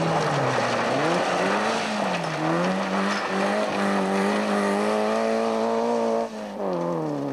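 Peugeot 205 rally car's four-cylinder engine revving hard while sliding on loose gravel. The revs dip and rise in the first few seconds, then climb steadily, with a brief lift about six seconds in before they fall. Tyres hiss over the gravel underneath.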